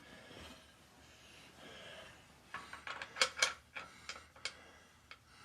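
Light metal clinks and taps: a quick cluster of about eight sharp ones starting about halfway through, and one more near the end, as steel engine parts or tools are handled.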